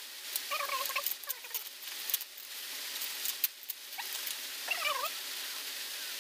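Plastic fish bag wrapped in paper being handled and unwrapped, crinkling and rustling with many sharp crackles. Two short squeaky calls cut through, one about half a second in and a wavering one near the five-second mark.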